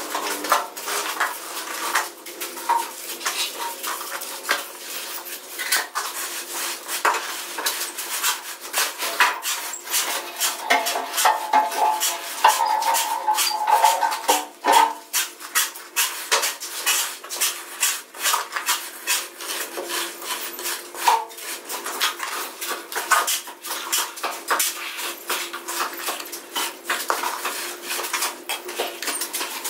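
Steel hand trowel scraping and tapping on wet cement mortar while a floor bed is spread and levelled. It makes a rapid, irregular run of metallic scrapes and clinks.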